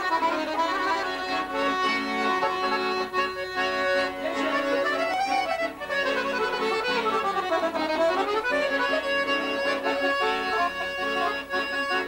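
Piano accordion playing a melody over steady held chords.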